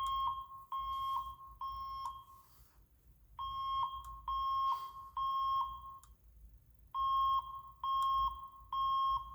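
Voice evacuation fire alarm speaker sounding the temporal-three evacuation tone between spoken messages: three steady beeps, a pause, repeated three times. The Safe Path voice evacuation system is in alarm, and the temporal-three pattern is the standard signal to evacuate the building.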